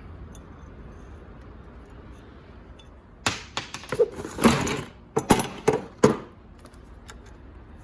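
Clicks, knocks and rattles of a broken sliding patio door handle set being slid off the door and handled. A cluster of sharp strikes, some with a short ring, comes about three seconds in and lasts about three seconds.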